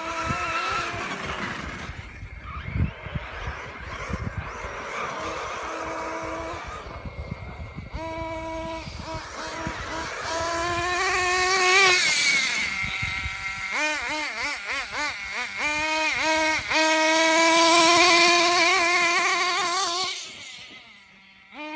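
Radio-controlled off-road model car's motor running with a high buzz that rises and falls as the car is throttled up and down, loudest about halfway through and again near the end before fading away. A few sharp knocks come about two to three seconds in.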